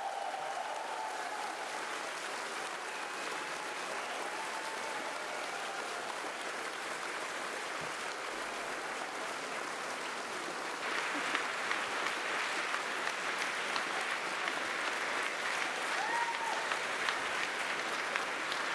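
Audience applauding in a hall, becoming louder and denser about eleven seconds in.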